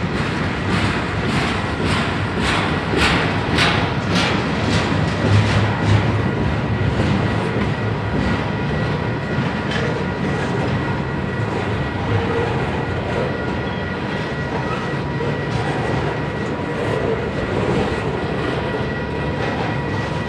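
Double-stack container train rolling past: a steady rumble of steel wheels on rail, with a clickety-clack of wheels over the rail joints that is most distinct in the first few seconds.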